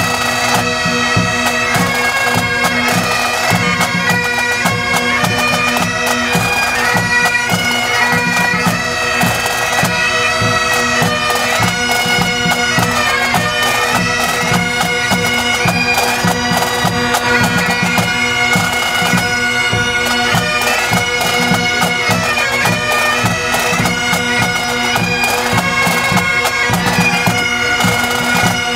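Pipe band playing: Great Highland bagpipes carry a tune over steady drones, with drums beating underneath.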